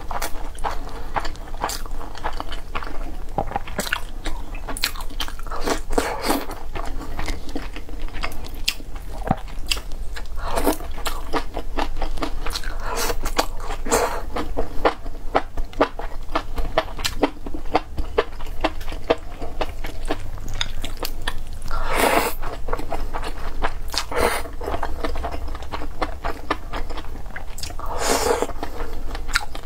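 Close-miked eating: a person chewing and biting rice and braised meat, with many quick wet mouth clicks and smacks and a few louder, longer ones spread through.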